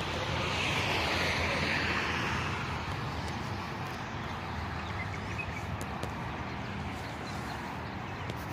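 Steady outdoor background noise with a low hum, and a louder hiss that swells and fades over the first two seconds.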